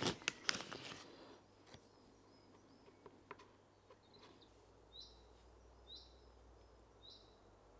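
Plastic pouch of copper powder crinkling as it is handled and opened in the first second, then a few faint ticks from handling. Near the end come three faint, short, high chirps about a second apart.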